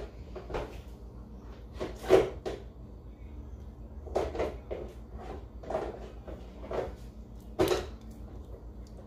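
A silicone spatula knocking and scraping against a glass measuring cup as thick sauce is scraped out of it onto chicken in a ceramic baking dish: about ten short, irregular light knocks.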